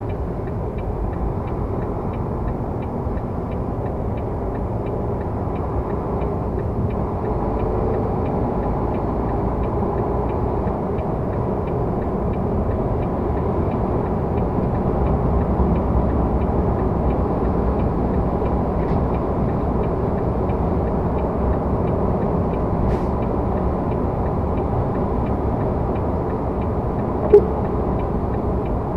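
Steady road and engine rumble inside a truck cab driving at highway speed, with a light regular ticking about two times a second. One sharp click near the end is the loudest moment.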